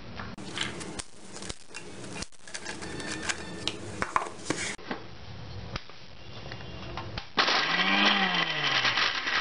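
Toasted bread pieces clicking and rustling as they go into a steel mixer-grinder jar. About seven seconds in, the mixer grinder switches on and runs loudly, blades chopping the dry toasted bread into coarse crumbs.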